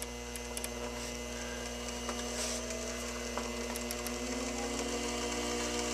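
A McMillan Electric 90-volt DC treadmill motor running on its speed controller over a steady electrical hum. Its whine slowly rises in pitch and grows a little louder as the speed is wound up.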